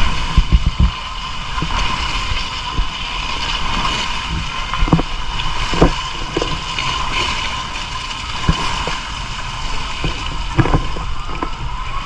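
Water rushing and splashing with wind buffeting the microphone, and a few scattered knocks.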